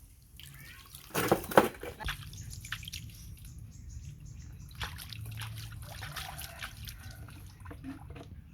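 Bath water sloshing and splashing as a small pet monkey is washed, with one loud splash a little over a second in, then lighter splashes and drips.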